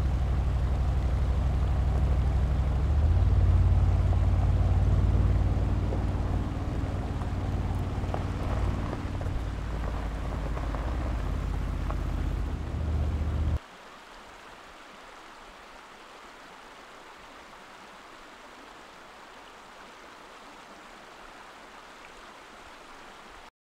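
2019 Mercedes-Benz G-Class engine running under load on a dirt track. The low, steady engine note grows louder about three seconds in. It cuts off abruptly about thirteen seconds in, leaving a quieter, even rush of water from a shallow stream.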